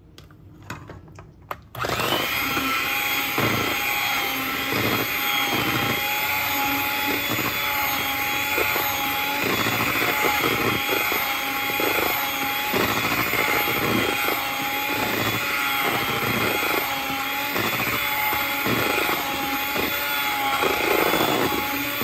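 Proctor Silex electric hand mixer switched on about two seconds in and running steadily with a constant whine. Its beaters whip whipped topping into a cream cheese mixture in a stainless steel bowl, knocking against the bowl irregularly. It stops at the very end.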